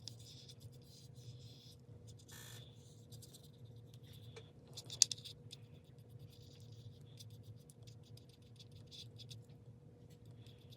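Drawing tool scratching in quick, short strokes, with one sharp click about five seconds in, over a steady low electrical hum.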